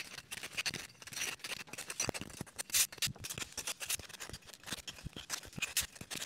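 A small wooden cutout being hand-sanded with a sanding sponge: quick, irregular scratchy rubbing strokes.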